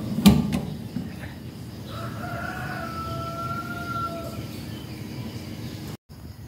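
A countertop oven's glass door shuts with a sharp clack just after the start. From about two seconds in, a rooster crows once, a single long call of about two and a half seconds.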